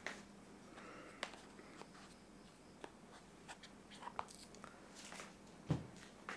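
Light handling noises as a glass perfume bottle is lifted out of its cardboard gift box: a few scattered clicks and rustles, with one dull thump, the loudest sound, near the end.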